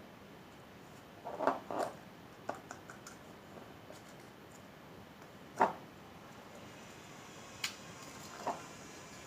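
Handling noises: a handful of brief taps and scrapes, the loudest about five and a half seconds in, over a faint steady room hiss.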